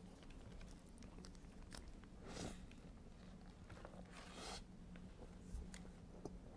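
Faint eating sounds: biting into and chewing a burger stuffed with French fries, with two short crisp noises about two and four seconds in.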